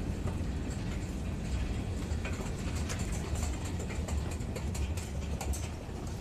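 Subway station escalator running: a steady low mechanical rumble with light scattered clicks, easing a little near the end.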